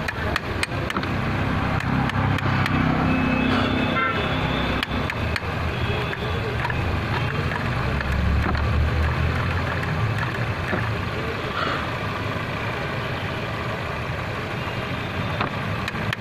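Road traffic rumbling past, with a heavier vehicle swelling by twice. Light metallic clicks come from a wrench working on a car battery's terminal clamp.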